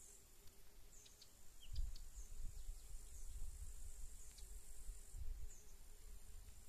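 Insects in a summer wheat field buzzing steadily and high, with short, high, falling chirps about once a second. A low gusting rumble comes in about two seconds in and is the loudest sound.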